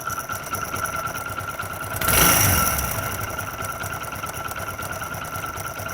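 Hero Honda Splendor Plus single-cylinder four-stroke engine idling steadily, growing louder for about a second two seconds in. There is no rattling 'char' noise: its cause, a broken plate on the flywheel magnet, has been fixed by gluing the magnet back in place.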